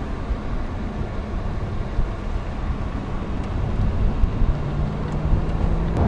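Interior noise of a 2013 Jaguar XKR on the move: a steady low rumble of road noise and its 5.0 supercharged V8. A low steady hum joins about four and a half seconds in.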